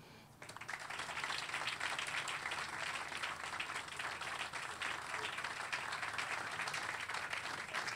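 Audience applauding: many hands clapping at once, starting about half a second in and holding steady.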